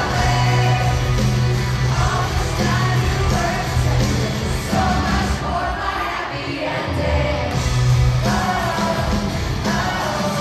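Live pop-rock band playing, with electric guitars, bass and drums under a woman's lead vocal, recorded from the audience in a large hall.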